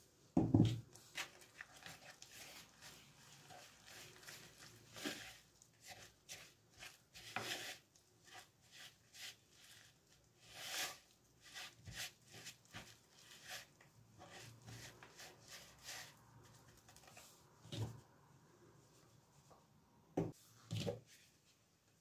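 Flour and egg being mixed into dough in a plastic bowl, first with a wire whisk and then by hand: irregular scraping and scratching, with a few dull knocks about half a second in and again near the end.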